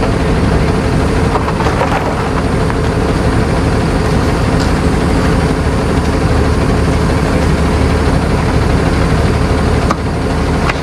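A motor vehicle's engine running steadily, a constant low hum.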